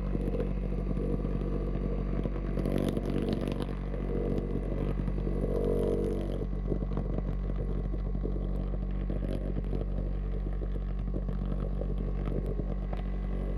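Subwoofer playing a steady low-frequency tone, a deep buzzing hum. Over it, the oobleck (cornstarch and water) bouncing on the speaker cone gives a run of short clicking and crackling ticks.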